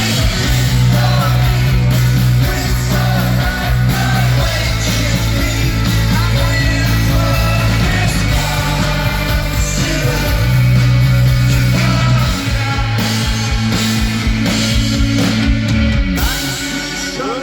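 Live rock band playing loudly with guitars, bass and drums under a sung lead vocal; the low bass drops out near the end.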